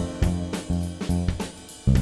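Background music with a steady drum-kit beat over a low bass line.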